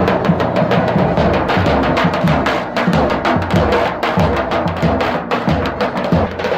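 Davul, the large Turkish double-headed bass drum, beaten with sticks in a steady, fast dance rhythm to accompany a halay line dance.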